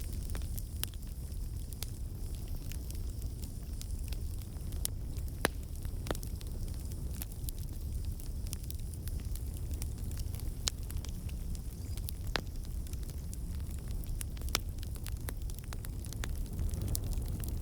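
Campfire burning: a steady low rumble of flames with frequent irregular crackles and pops, a few of them sharper and louder.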